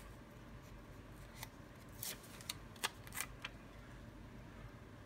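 Faint paper crackles and rustles as a paper sticker is peeled from its backing and pressed onto a planner page, with a handful of short crackles in the middle.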